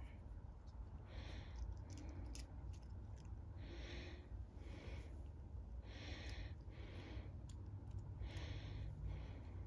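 Faint, regular breathing close to the microphone, a soft puff about every two seconds, with a few small clicks from parts being handled.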